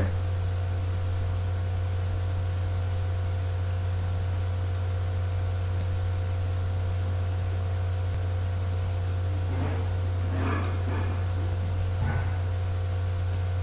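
Steady low hum with several faint steady higher tones above it, unchanging throughout. A few faint, brief sounds come through about ten and twelve seconds in.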